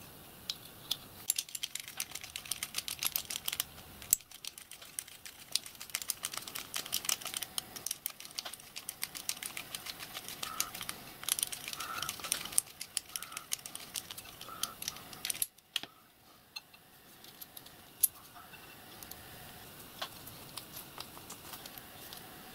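Rapid light metallic clicking and tapping as small screws are driven into a model steam locomotive's steel crosshead with a small screwdriver, and the parts knock against the bench plate. Busy for about the first fifteen seconds, then only a few scattered clicks.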